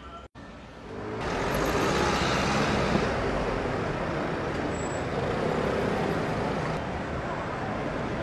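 City street traffic noise: a steady hiss of vehicle engines and tyres, coming in after a brief drop-out about a second in.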